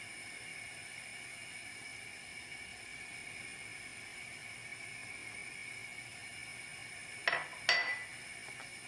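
Two sharp clinks of kitchenware striking a dish, about half a second apart near the end, the second ringing briefly, over a steady faint high-pitched whine.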